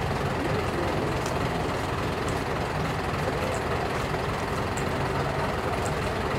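Large truck's diesel engine idling steadily, a low, even rumble with no revving.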